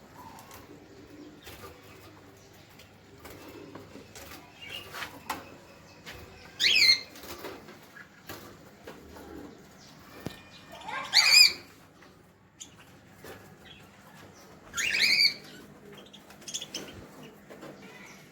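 Caged birds moving and flapping their wings, with scattered rustles and clicks. Three loud, short, shrill calls come about four seconds apart, each rising in pitch.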